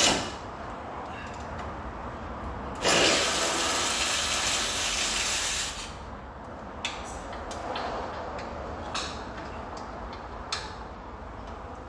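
A loud, steady hiss lasting about three seconds, starting a few seconds in, with scattered clicks and knocks of tools working on the car around it.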